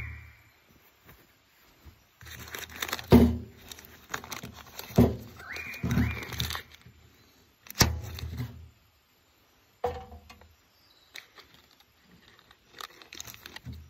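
A paper butter wrapper crinkling and tearing as a block of butter is unwrapped and cut with a knife, in several bursts with a few sharp knocks among them.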